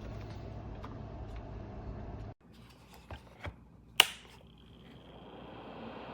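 Small ceramic space heater's fan blowing steadily, then cutting off suddenly. A few light clicks follow, then a sharp click about four seconds in, after which the fan noise builds back up with a faint high whine.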